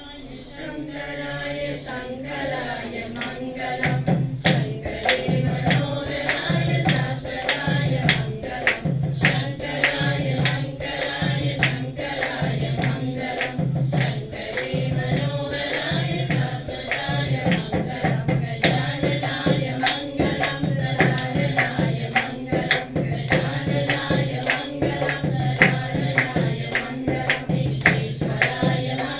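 Hindu devotional music: voices singing over a steady drum beat, with sharp percussion strikes throughout. It swells up over the first few seconds.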